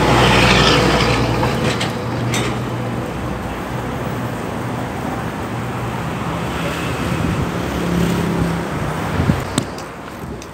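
Road traffic noise: motor vehicle engines running nearby, with a low engine hum for the first second or two, heard from a moving bicycle. A few sharp knocks near the end as the phone is handled.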